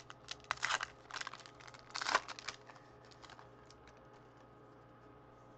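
Foil wrapper of a 2013-14 Prestige Basketball card pack crinkling and crackling as it is torn open by hand. The crackles come in short bursts, loudest about two seconds in, and die away after about three and a half seconds.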